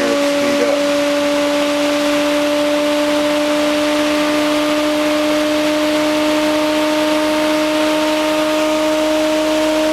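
Bedini-Cole linear counter-rotating ironless magnetic motor running: a steady hum with a clear pitch and a strong overtone an octave above, creeping slightly higher over the seconds, over a steady hiss.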